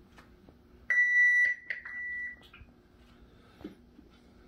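HomeChoice PRO peritoneal dialysis cycler beeping: a loud, steady, high electronic beep begins about a second in and lasts about half a second. It drops to a fainter tone that stops a little past two seconds in.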